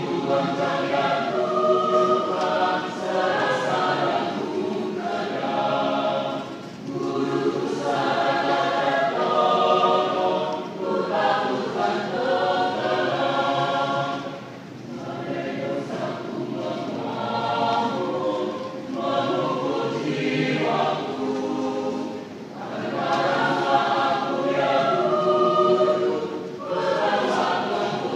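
Church choir singing a hymn together, phrase by phrase, with brief dips in level between the phrases.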